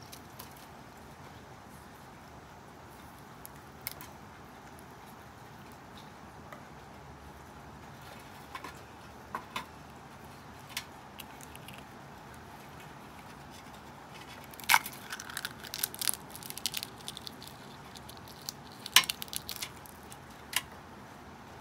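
Charred eggshell being cracked and peeled by gloved fingers: sparse sharp clicks at first, then bursts of crackling about two-thirds of the way through and again near the end, as shell pieces break and drop onto a stainless steel tray.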